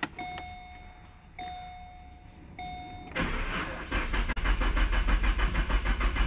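Holden VE Commodore cold start. A click, then a dash warning chime sounding three times, then the starter cranking the engine over in a steady rhythmic pulse from about three seconds in, growing louder. The owner says the car's battery is dying.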